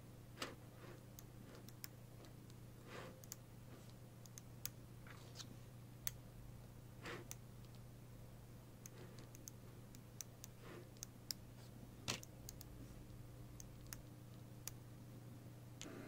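Small neodymium magnetic balls clicking as they snap onto one another, a scattered series of short sharp clicks with a few softer rubbing sounds between them.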